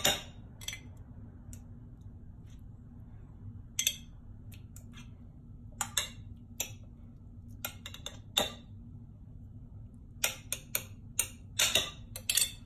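Metal spoon clinking and scraping against a glass baking dish while spreading meat sauce: scattered short clicks, coming thicker near the end, over a faint steady hum.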